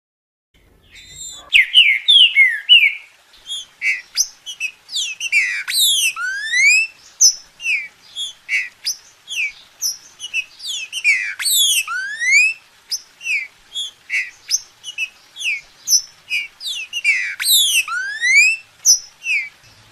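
Green-winged saltator (trinca-ferro) singing loudly, starting about a second in: quick whistled notes, falling sweeps and rising glides. The main phrase comes back about every six seconds.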